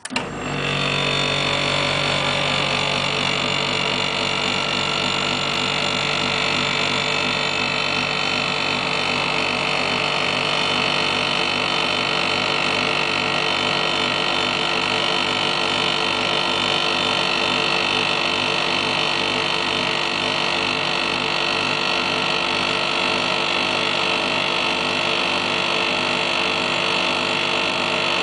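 Frozen Armor single-stage phase-change cooler switching on: its compressor and fan kick in suddenly with a brief jolt, then run as a steady, pulsing mechanical hum while the unit pulls down toward sub-zero temperatures.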